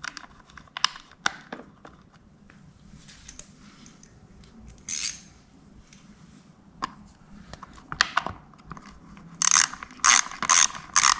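Scattered clicks and handling of metal parts, then near the end a ratchet spanner clicking in quick, even strokes, about three a second, as bolts are run in on the Honda CRF110 during reassembly.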